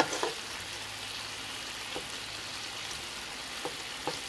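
Chicken skewers sizzling steadily in a frying pan over very low heat, in their pan juices. A few faint light ticks are heard over the sizzle.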